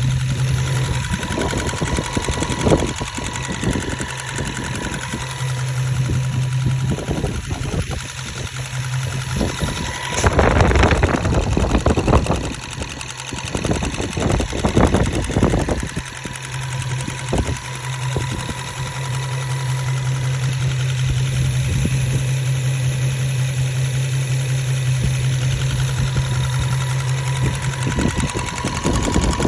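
Infiniti Q50's 3.7-litre VQ37VHR V6 engine running, a steady hum with a repeated ticking over it that the owner cannot place: fuel dampers, lifter tick, or normal noise. It gets louder and busier for a few seconds in the middle.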